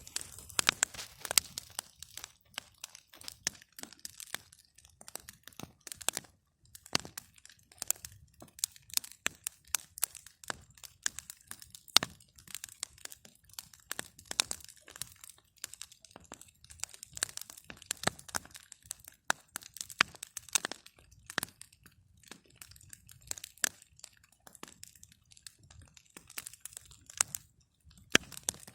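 Campfire of burning wood crackling: irregular sharp pops and snaps, with one louder pop about twelve seconds in.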